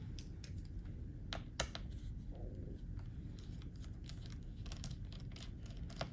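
Scattered light clicks and taps of small tools or parts being handled, over a steady low hum; the sharpest click comes about a second and a half in.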